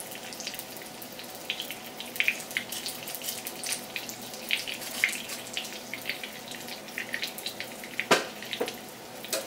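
Stuffed chicken breast searing in hot oil in a nonstick skillet: a steady sizzle with irregular crackles and spits of fat, and a sharper crack a little after eight seconds.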